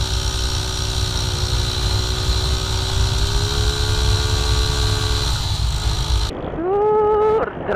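Motorcycle engine running steadily at cruising speed, with heavy wind rumble on the microphone; its pitch steps up slightly about three seconds in. Near the end this sound cuts off suddenly and a rising engine-like note takes over.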